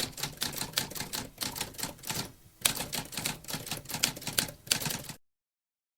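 Typewriter keys clacking in an irregular run of keystrokes, with a brief pause a little past two seconds; the typing cuts off suddenly about five seconds in.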